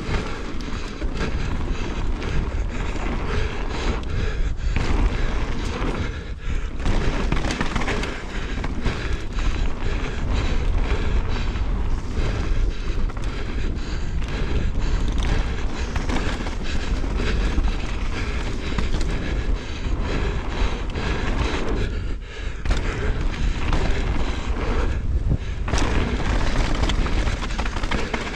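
Mountain bike descending a loose dirt and gravel trail at speed: tyres crunching over stones and the bike rattling with a steady stream of knocks, under heavy wind rumble on the action camera's microphone.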